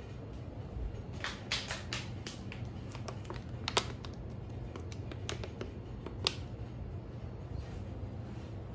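Plastic water bottle handled by hand, crackling and clicking: a cluster of crackles starting about a second in, then a few single sharp clicks, the loudest near the middle. A steady low hum runs underneath.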